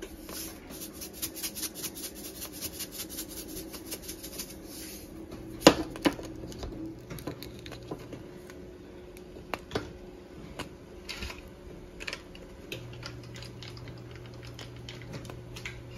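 A plastic container of Himalayan pink salt rattling in quick, even clicks for about five seconds as salt goes onto broccoli in a pot, followed by a few separate sharp knocks against the pot, over a faint steady hum.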